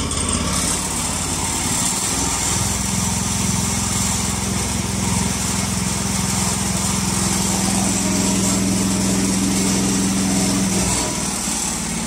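Small pull-start petrol engine of a fiber optic cable pushing machine running steadily, driving its roller tracks to feed cable forward in the slow-forward setting. A steadier hum joins about two and a half seconds in and drops away about a second before the end.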